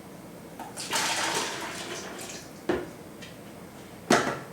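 Liquid running or pouring for about a second and a half, then two sharp knocks, the second louder.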